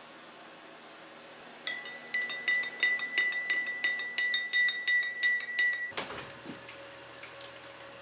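A quick run of about a dozen light clinks, roughly three a second, each ringing at the same bright pitch, stopping after about four seconds. A soft low bump follows.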